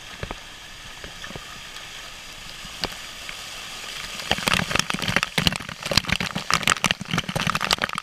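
A small waterfall running over a rock slab into a pool, a steady rush of water. About four seconds in, the falling water and spray strike the camera directly, with dense, loud, irregular splattering and crackling on the lens housing.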